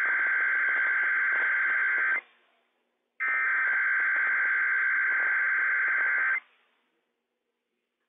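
NOAA Weather Radio Emergency Alert System SAME header data bursts, the harsh buzzing two-tone digital screech that opens a Required Weekly Test. One burst cuts off about two seconds in, and a second burst of about three seconds follows a second later, then silence.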